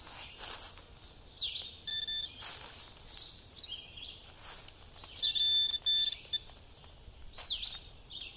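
Handheld metal-detecting pinpointer giving steady high-pitched alert tones over a freshly dug hole, once briefly about two seconds in and again, louder and longer, around five seconds in. Short downward-sweeping bird chirps come in between, with soft scraping of soil and leaves by hand.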